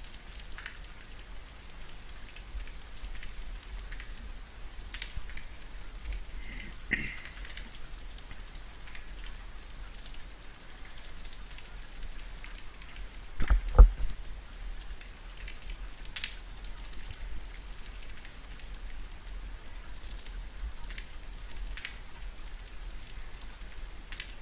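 Steady rain falling during a thunderstorm, with scattered drops ticking. About fourteen seconds in there is a brief, loud low thump.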